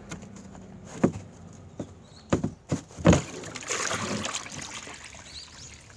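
Several knocks as the metal chimney pipe is handled, then a spell of splashing as the pooled wood vinegar (condensed smoke liquid) is poured out of the flue.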